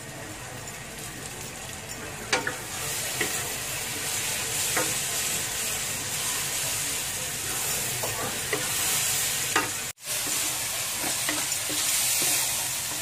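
Canned sardines, sliced onions, garlic and chili frying in hot oil in a wok, stirred with a wooden spatula that knocks and scrapes against the pan. The sizzle grows louder a few seconds in, and the sound cuts out for an instant about ten seconds in.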